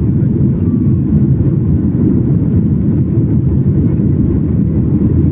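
Airplane noise: a steady low rumble of engines and rushing air that holds at one level throughout.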